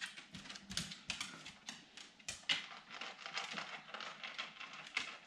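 A dog's claws clicking and tapping on a wooden floor as she walks, a quick, irregular run of light clicks.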